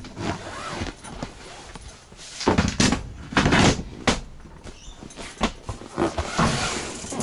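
Knocks, clunks and rustling of a camper trailer's fold-up tent being packed up, with panels and fittings being handled and canvas moving. The sounds come in irregular bursts, loudest about halfway through and again near the end.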